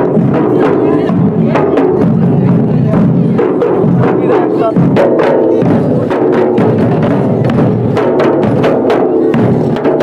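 Several large double-headed wooden barrel drums beaten together in a fast, dense rhythm for a wedding dance, with crowd voices mixed in.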